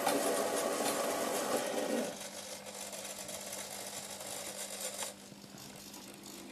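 Mechanism of a brass mechanical weather-forecasting machine running with a whirring clatter that stops suddenly about two seconds in, leaving a steady low hum. A single sharp click about five seconds in.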